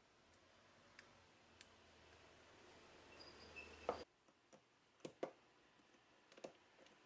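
Faint hiss that builds and cuts off abruptly about four seconds in, followed by three soft clicks, two close together and one more near the end.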